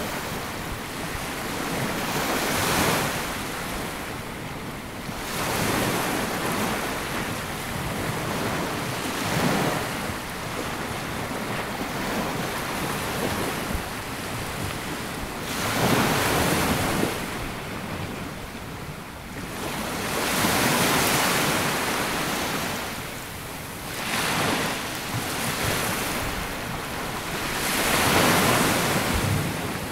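Small sea waves breaking and washing up a sandy beach, swelling and falling back every few seconds, with wind noise on the microphone.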